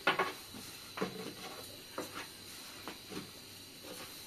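A series of light knocks and taps, a sharper one at the start and then softer ones at irregular intervals of about a second.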